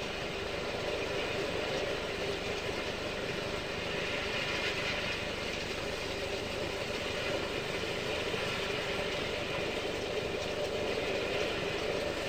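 Steady rushing drone with slow swells in level: the sound-effect bed of a documentary about the sun's surface, played over loudspeakers.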